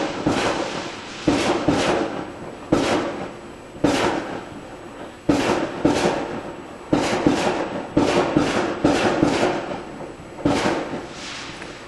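Neighbourhood fireworks going off: an irregular, rapid series of sharp bangs, sometimes several within a second, each trailing off in an echo.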